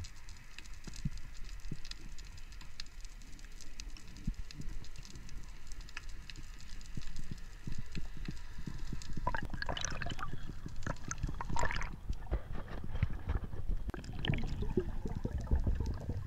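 Underwater camera audio of a diver swimming over a reef: a low rumble of moving water against the camera housing with scattered small clicks, and a busier run of clicks and bubbling from about nine to twelve seconds in.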